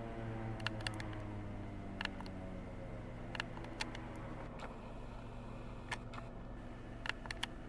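Federal Signal 2001-series outdoor warning sirens winding down, a stack of tones slowly falling in pitch, heard from inside a car over a low steady hum, with scattered sharp clicks.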